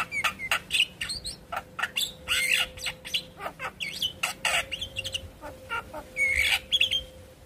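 Javan myna (jalak kebo) calling in a rapid, irregular run of sharp clicks, chattering notes and short whistles.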